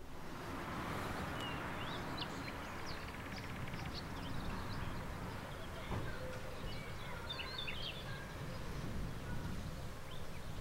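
Birds chirping in many short calls over a steady low background noise.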